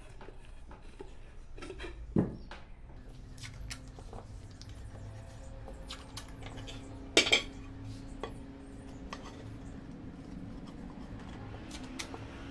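Ceramic tile pieces clinking and knocking against each other and the table as they are stood up and taped together into a vase. Scattered light clicks, with a louder knock about two seconds in and a sharp double knock about seven seconds in.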